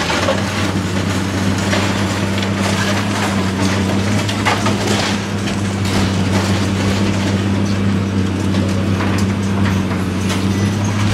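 High-reach demolition excavator's diesel engine running steadily while its jaws crunch into concrete and debris breaks away, with irregular cracking and crumbling throughout.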